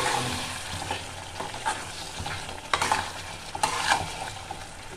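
Metal spoon stirring and scraping chicken korma around a metal kadhai while the masala-coated chicken fries and sizzles at the bhuna (roasting) stage, with a few sharper clinks of the spoon against the pan.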